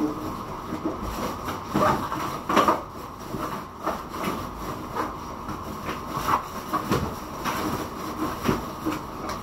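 Pot of soup boiling on the stove: a steady hiss with irregular bubbling knocks and surges.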